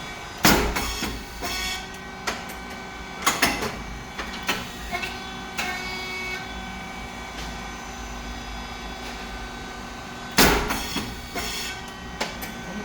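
Rice cake puffing machine running its cycle: a steady hum of the hydraulic pump motor and fan, broken twice, about ten seconds apart, by a loud pop as the heated moulds open and the puffed rice cakes burst out, with smaller knocks in between.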